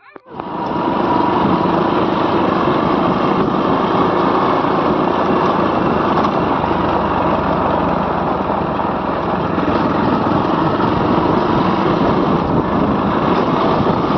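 Motorcycle engine running steadily at an even pace while riding along a dirt track. It starts suddenly just after the start.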